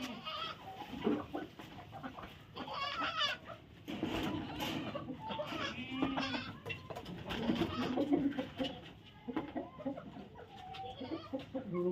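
Farmyard livestock calling: goats bleating among other short animal cries, several calls overlapping one after another.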